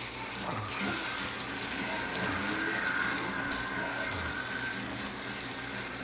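A spatula stirring raw rice into simmering vegetables and broth in a nonstick frying pan: a steady wet sizzle and scraping. A faint steady high tone runs from about a second in until about five seconds.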